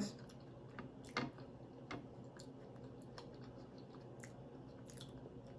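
Faint chewing with a scattering of soft mouth clicks and smacks.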